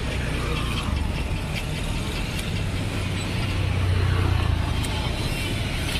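Street traffic with small motorcycle engines running, one motorcycle passing close and loudest about four seconds in.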